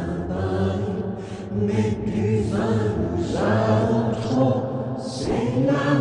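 Voices singing a French nursery rhyme, with a steady pitched backing underneath.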